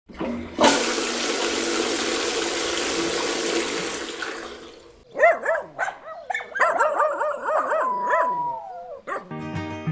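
A loud, even rushing noise like static for about four seconds, then a string of short rising-and-falling whines and yelps from a pug, ending in a longer falling whine. Acoustic guitar music starts near the end.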